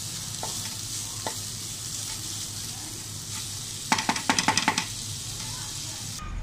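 Spiced chicken mince, cooked through, sizzling in a non-stick frying pan while a spatula stirs it, with a quick run of spatula scrapes and taps against the pan about four seconds in. The sizzle cuts off suddenly near the end.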